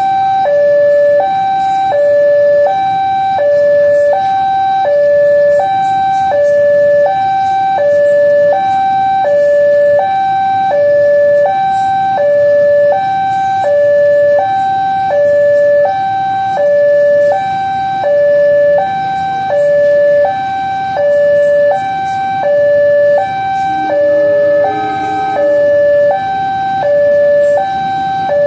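Railway level-crossing alarm sounding its electronic two-tone warning, alternating steadily between a higher and a lower tone, each held just under a second. It signals that a train is approaching and the crossing is closed.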